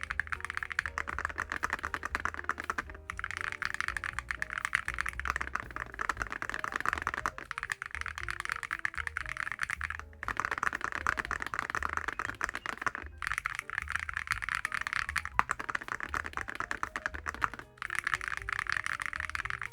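Fast typing on a mechanical keyboard fitted with full-metal keycaps, giving a dense run of keystroke clicks. The typing is broken by brief gaps every two to four seconds.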